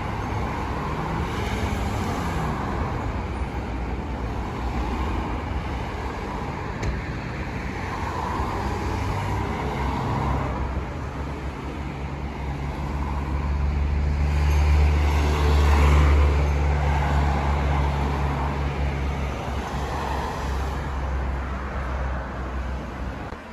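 City street traffic: cars passing in a continuous wash of tyre and engine noise. A deeper, steady engine drone builds past the middle, is loudest about two-thirds of the way through, then fades.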